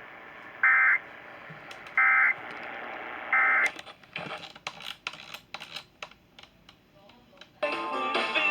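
Three short bursts of Emergency Alert System end-of-message data tones, the screechy digital squawk, about a second and a half apart over radio audio, marking the end of the alert. Then a run of sharp clicks, and a brief pitched sound starts near the end.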